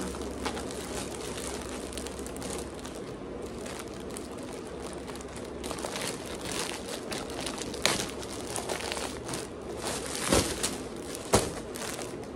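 Plastic parcel packaging crinkling and rustling as it is handled and opened by hand. The crinkles get louder in the second half, with a few sharp crackles near the end.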